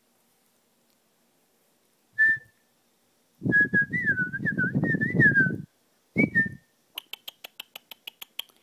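A person whistling: a short note about two seconds in, then a warbling whistle of about two seconds that wavers up and down, then another short note. Near the end comes a quick run of soft clicks, about eight a second.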